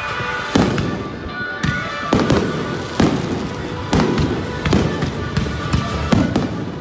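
Aerial firework shells bursting overhead: about eight bangs, roughly one a second, each with a short echoing tail. Music plays underneath.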